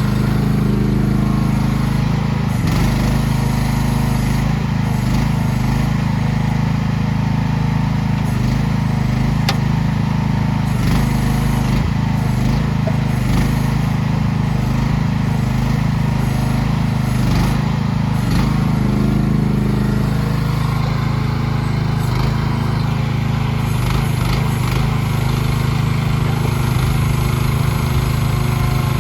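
Engine of a CFG QK16R mini excavator running steadily at a constant speed, its note shifting slightly about twenty seconds in.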